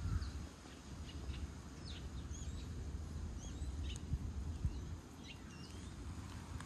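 Small birds chirping: a scattering of short, high chirps that sweep up and down, over a low steady rumble.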